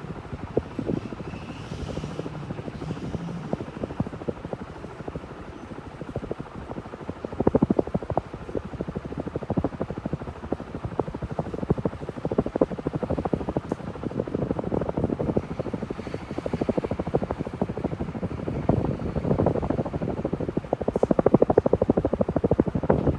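KDK B56YK industrial ceiling fan running, a steady whirr of moving air mixed with a fast, uneven clatter that grows louder and softer in waves. The sound drops away suddenly at the very end.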